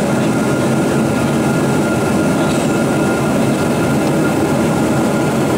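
Cabin noise of a Boeing 777-200 rolling on the ground: a steady, loud rumble of wheels and jet engines with a faint steady whine above it.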